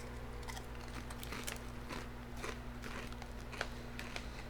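A person chewing crunchy potato chips, with irregular crunches.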